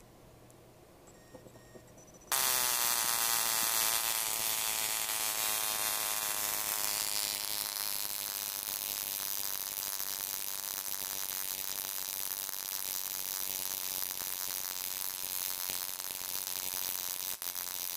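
Homemade battery-powered stun gun, built from a disposable camera's flash circuit driving a hand-wound high-voltage coil, switched on about two seconds in and buzzing loudly while a spark arcs across its output. The pitch drops briefly as it starts, then holds steady.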